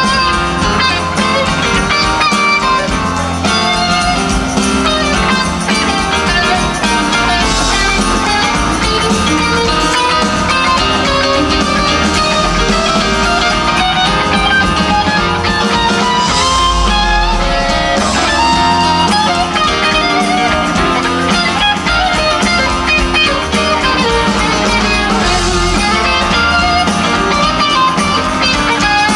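Live rock band jamming: electric guitar lines over drums, bass and keyboards, loud and even, heard from the crowd.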